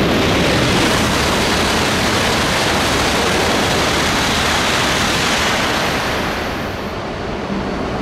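An E5-series Shinkansen bullet train passing straight through the station at high speed: a loud rush of air and wheel noise that swells as it arrives, holds for several seconds while the long train goes by, and dies away about six to seven seconds in.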